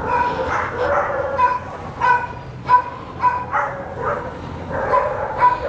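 A dog yipping and barking in a quick, uneven string of short, high calls.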